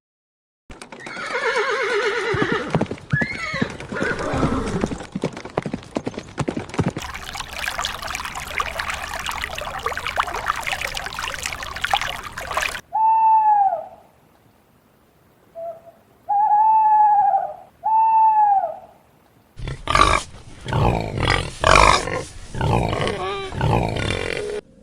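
A horse whinnying, a wavering call that falls in pitch, followed by several seconds of noise. Later come four short, clear, arched calls and a noisy, pulsing stretch from other farm animals.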